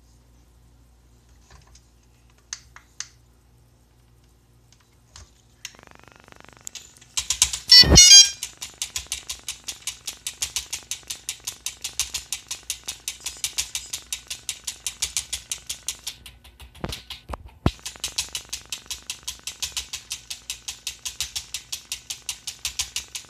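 Crash-damaged DJI Phantom 3 camera gimbal powering up and chattering: its motors twitch the camera back and forth, giving a rapid, even clicking of about four ticks a second. A few faint beeps come early, a brief loud buzz comes about eight seconds in, and two short tones break the clicking briefly near the seventeen-second mark.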